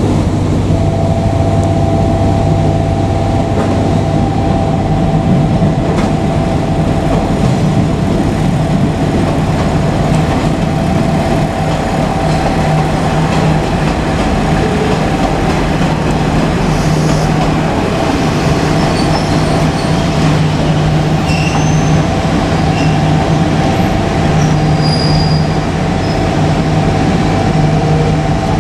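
JR Kyushu KiHa 47 diesel railcars running, a steady engine drone with a constant whine over it.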